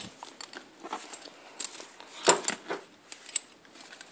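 Handling of a Louis Vuitton Monogram Olympe handbag: scattered light clicks and rustles with faint metallic clinks from its gold-tone hardware. The loudest knock comes a little past two seconds in.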